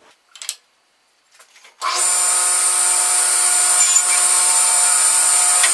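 A few light handling knocks, then about two seconds in a power saw switches on and runs loudly and steadily with a high whine, cutting a thin strip of maple to size.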